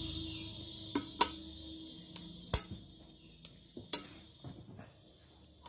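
Metal knitting needles clicking and tapping against each other as stitches are worked, with a few sharp clicks at irregular intervals.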